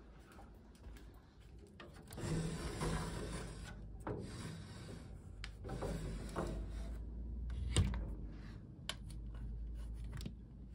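Wooden sliding shoji screens rubbing and scraping along their tracks in several long pushes, with a single knock about eight seconds in.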